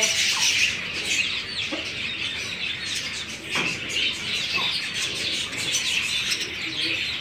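Caged budgerigars chattering in a steady, dense twitter of high chirps, with a few short low clucks from chickens.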